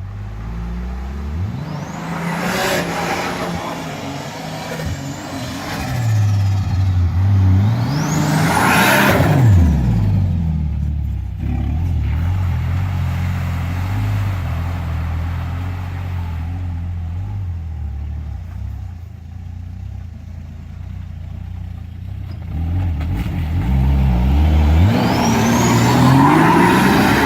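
Turbocharged Nissan TB42 straight-six engine revving hard three times, near the start, about nine seconds in and near the end, and running lower in between. A high turbo whistle rises with each rev.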